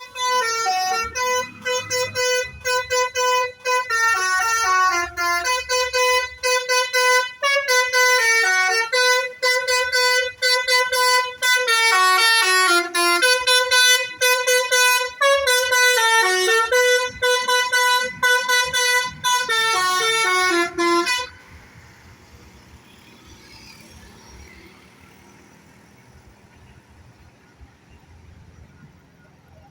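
Basuri 'telolet' musical vehicle horn playing a fast tune of short honking notes that jump between pitches, cutting off suddenly about 21 seconds in.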